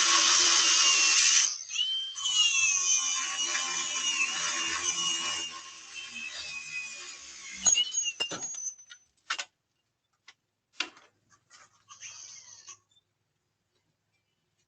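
Handheld power tool cutting metal, a bike lock being cut by a thief, with a whine that dips and rises under load. The cutting stops about five seconds in. A few sharp clicks and knocks follow, then near silence.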